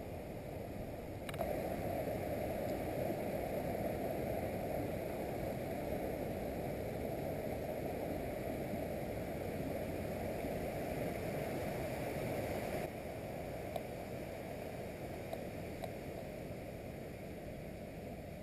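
Steady rushing of flowing water from a stream or cascade. It grows louder abruptly about a second in and drops back again about thirteen seconds in.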